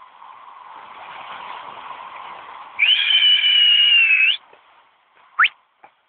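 A whistle blown in one loud, steady, high blast of about a second and a half, which flicks up in pitch as it stops. It comes over a steady hiss, and a short rising squeak follows near the end.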